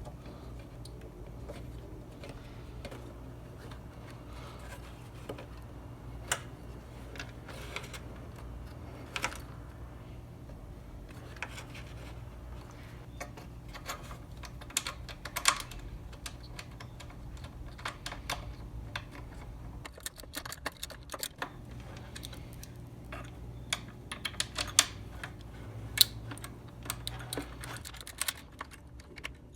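Irregular light clicks and taps of plastic engine parts and hand tools being handled and clipped into place, over a steady low hum.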